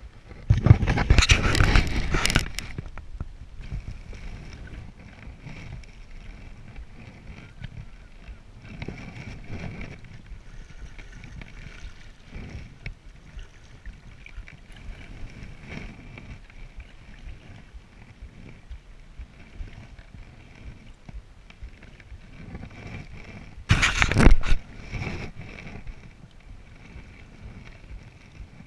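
Single-blade wooden paddle strokes pulling a Selway Fisher Wren canoe through calm water, a soft swish every few seconds. Two loud bursts of noise on the chest-mounted microphone stand out: one lasting about two seconds near the start and a shorter one near the end.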